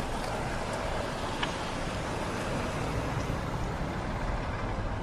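Steady road noise of a moving vehicle: engine and tyre rumble with no impact.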